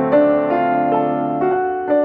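Background piano music: a melody of single notes over held chords, changing about twice a second.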